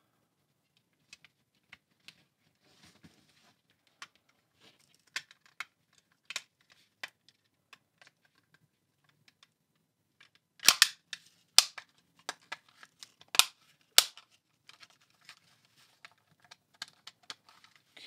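Plastic parts of a small handheld remote control being fitted back together by hand: scattered faint clicks and taps, then four sharp, loud plastic clicks a little past the middle.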